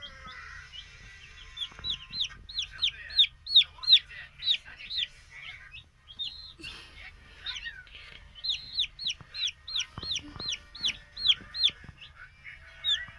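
A baby chick peeping loudly and repeatedly. Its high peeps each fall in pitch and come about three a second, in two long runs with a short break between them.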